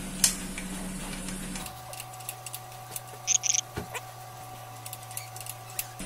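Faint clicks and light metal taps as an exhaust mounting nut is fitted by hand onto its bolt, over a steady low hum. Two short high-pitched chirps come about three and a half seconds in.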